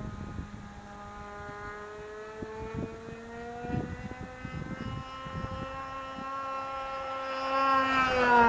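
Vintage radio-controlled model plane's small engine buzzing in flight, slowly getting louder as it approaches. Near the end its pitch drops as it passes by.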